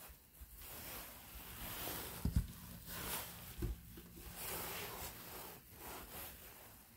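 Rustling and rubbing of a handheld phone being moved about, with two dull low thumps about two and a half and three and a half seconds in.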